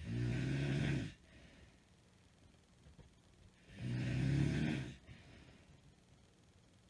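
A woman snoring in her sleep, with two loud snores about three seconds apart, each lasting about a second, and near quiet between them. The snoring is that of a woman with sleep apnea syndrome.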